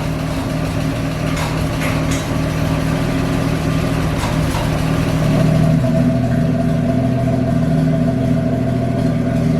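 A 4-litre Chevrolet straight-six engine idling steadily, with a few light clicks or knocks in the first half. It gets a little louder about five seconds in.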